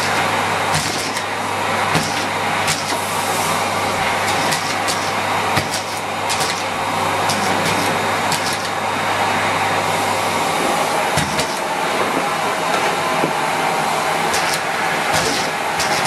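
Miele Complete C3 canister vacuum cleaner running steadily at full suction, its bare hose handle sucking up biscuit crumbs from carpet, with frequent sharp clicks and rattles of crumbs flying up the hose.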